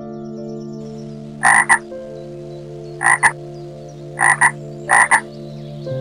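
An animal gives four short, harsh calls, each a quick double pulse, starting about a second and a half in, over soft background music with sustained tones.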